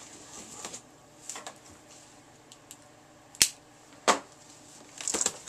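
Hands opening a taped cardboard shipping box: quiet handling and rustling of cardboard and packing tape, with sharp snaps about three and a half seconds in and just after four seconds, and a flurry of snaps and scrapes near the end.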